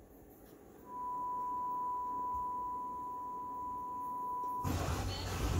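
Steady 1 kHz sine test tone played through an Ampex ASR 100 stereo receiver under test after repair. It starts about a second in and holds one pitch, then stops near the end as a louder, fuller sound takes over.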